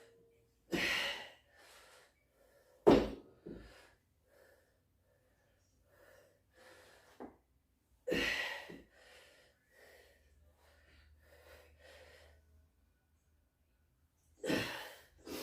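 A man breathing hard, with sharp exhales, through a set of sumo deadlifts, and a loud sharp knock just under three seconds in with a smaller one right after.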